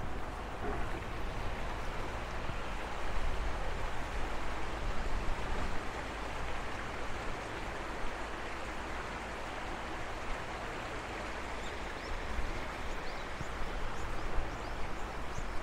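Outdoor rural ambience: a steady rushing noise with wind buffeting the microphone, and a few short bird chirps near the end.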